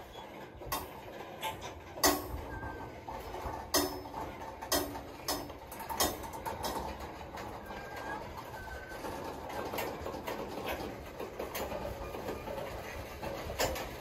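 Freight train cars rolling past, their steel wheels clacking and knocking over the rail joints over a steady rumble. The loudest clanks come in the first half.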